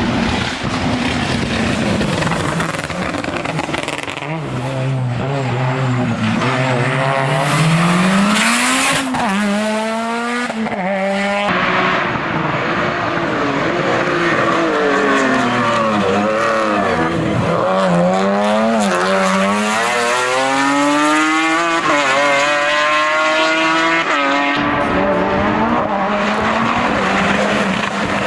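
Hill-climb race car's engine at full throttle, revving up and down through repeated gear changes: pitch climbs, drops sharply at a shift, falls under braking and climbs again as it accelerates.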